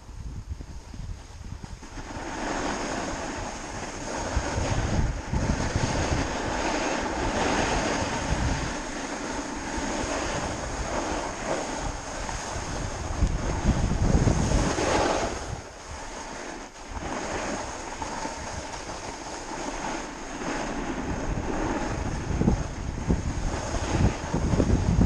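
Snowboard sliding and carving down a groomed slope: a steady scraping hiss of the board on the snow, louder from about two seconds in, with wind buffeting the microphone.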